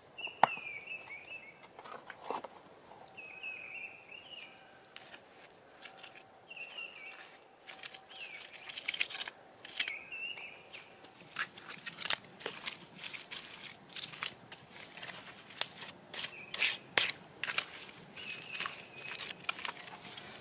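Crunching and scraping of hands and a stick working the clay covering of a hut roof, thicker in the second half. A bird gives short wavering calls several times.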